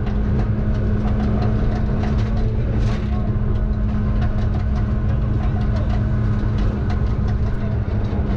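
Ford Fiesta rally car's engine running at steady high revs at about 140 km/h, heard from inside the cabin, its pitch holding level with no gear change. Under it is the rumble of tyres on gravel, with gravel ticking against the car.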